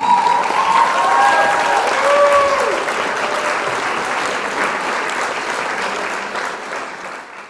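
A crowd applauding, with a few voices calling out in the first couple of seconds; the clapping fades out near the end.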